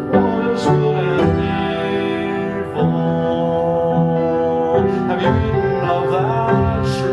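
Music: held, sustained notes with a voice singing over them, the melody gliding between notes a couple of times.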